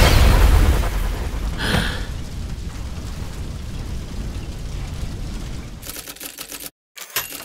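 Explosion sound effect: a loud blast at the very start dying away into a long rumbling tail over several seconds. Near the end comes a rapid stuttering of clicks, broken by a brief dead silence.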